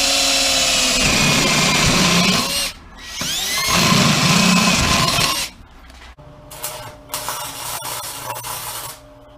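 Power drill boring holes through the steel engine-mount plate, its motor pitch sagging under load. It stops briefly just before 3 seconds, spins back up and drills again until about five and a half seconds, then runs lighter in short bursts until it stops near the end.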